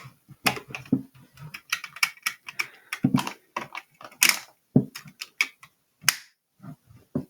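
Plastic Lego pieces clicking and clattering as they are handled, an irregular run of sharp clicks with a few louder knocks.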